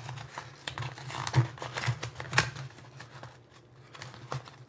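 A yellow paper mailer envelope being torn open by hand: paper crinkling and ripping in short, uneven tears, the loudest rips about a second and a half and two and a half seconds in.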